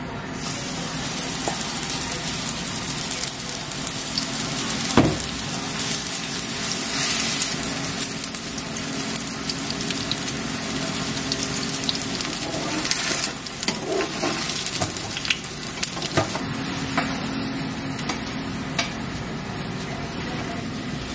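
Food sizzling steadily as it fries, with a knock about five seconds in and a run of scattered clicks and taps later on.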